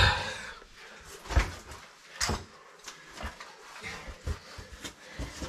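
Irregular knocks and scrapes of a caver's body and gear against rock while squeezing through a tight cave passage, about one sharp knock a second over low rustling.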